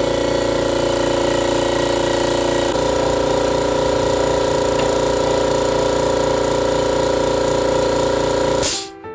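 An electric power tool's motor running steadily at full speed without load, starting abruptly just before and cutting off near the end.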